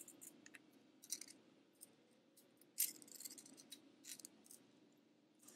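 Faint, scattered clicks and light metallic rattles from handling an angle grinder and its disc while the grinder is switched off, with one sharper click near the middle.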